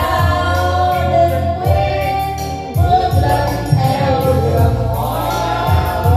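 A woman singing karaoke into a microphone over an amplified backing track with a bass line and a steady beat.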